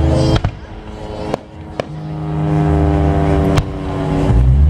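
Fireworks show: sharp bangs of shells bursting every second or so, over a steady low droning tone.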